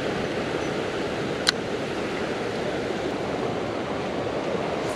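Steady rush of river water flowing over rocks, with a single sharp click about a second and a half in.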